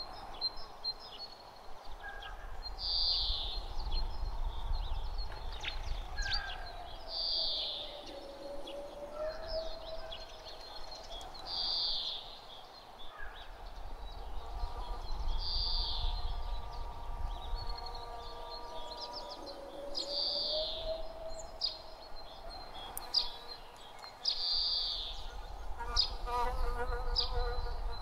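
Autumn outdoor ambience: a short, high bird call repeats about every four to five seconds over a low breeze rumble, with a faint, slowly wavering buzz and a few scattered chirps and clicks near the end.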